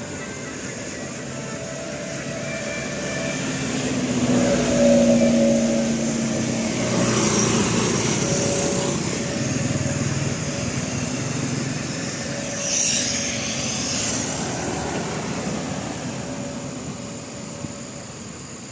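A large road vehicle, in all likelihood a bus, driving past: engine and road noise build over the first few seconds, stay loud for several seconds with a short hiss about thirteen seconds in, then fade away.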